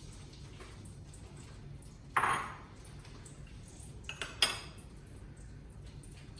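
Kitchen utensils knocking against a cooking pan: one loud clatter about two seconds in, then a quick run of three clinks a couple of seconds later, over a low steady hum.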